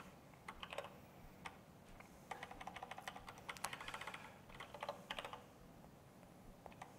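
Faint typing on a computer keyboard: short runs of quick keystroke clicks with brief pauses between them.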